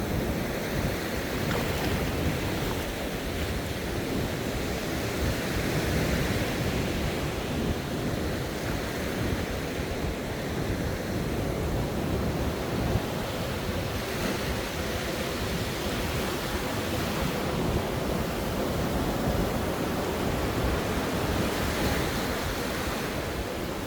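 Sea waves washing on the shore in a steady wash of surf, with wind rumbling on the microphone.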